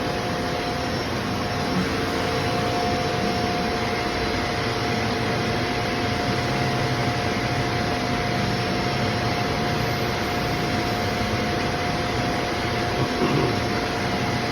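Belmont SY-2535T high-speed EDM hole drill running: a steady hiss with a constant two-tone hum.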